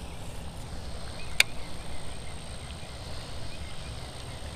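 A single sharp click about a second and a half in, from a baitcasting reel during a cast, over a steady low rumble on the microphone.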